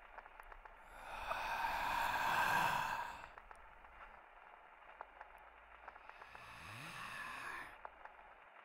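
Two long, breathy sighs: a louder one about a second in, lasting about two seconds, and a softer one near the end.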